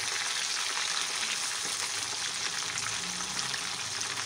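Gram-flour-coated fish pieces frying in hot oil in a wok: steady sizzling with a fine crackle.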